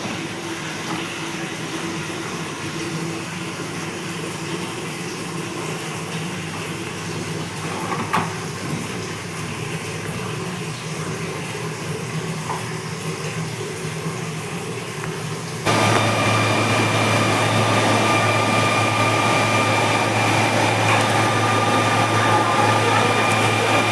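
Steady mechanical hum of running telecom power equipment, with a single knock about 8 s in. About 16 s in a louder hum with a high whine starts abruptly, as of cooling fans or a unit being switched on.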